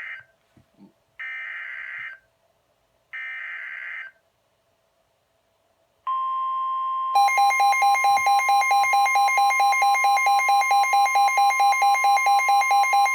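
NOAA Weather Radio SAME header: one-second bursts of screechy digital data at the start, then after a short silence the steady 1050 Hz warning alarm tone. About a second later the weather radio's own rapid pulsing alert beep joins it, marking a warning being received.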